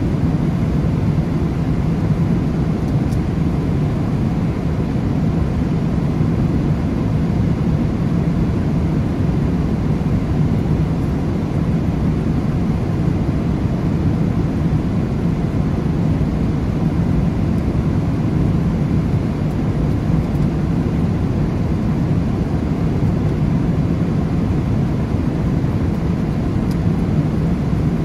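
Jet airliner cabin noise at cruise: a steady low rush of engine and airflow noise heard from inside the passenger cabin.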